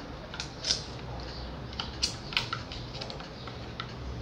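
Irregular light clicks and scrapes of metal on metal: a thin metal rod tapping and poking through the holes in the back of a drill's hole saw to push out the wood plug jammed inside.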